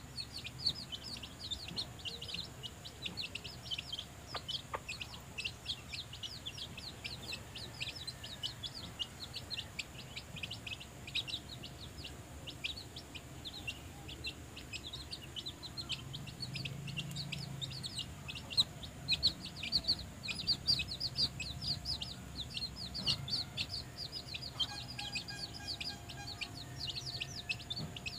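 A brood of young chicks peeping constantly while they feed, many short, high, falling peeps overlapping without a break, with a few low clucks from the mother hen around the middle.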